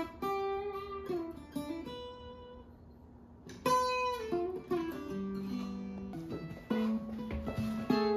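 Acoustic guitar played by hand: single notes and chords picked and left to ring, softer for a moment about two seconds in, then a strong chord near four seconds and further picked notes.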